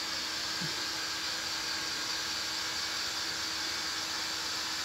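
Steady hiss from a steamer on the stove, cooking custard over low heat, with a faint steady hum underneath.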